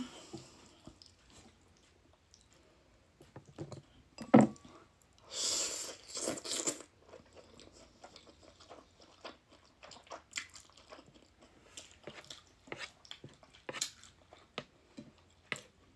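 Close-up chewing and mouth sounds of someone eating noodles, with scattered small clicks. A single sharp clack about four seconds in, and about a second and a half of hissing noise just after.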